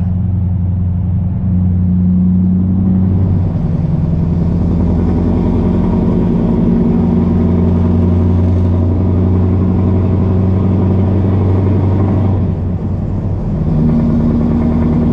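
Scania R650's V8 diesel running steadily under load, pulling a full trailer, heard from inside the cab. The engine note shifts a few times, with a brief drop about 13 seconds in before it picks up again on a higher note.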